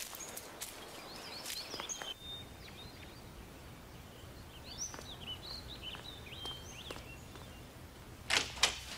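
Birds chirping, with a child's running footsteps in the first couple of seconds. Near the end, two sharp knocks as a back door is opened.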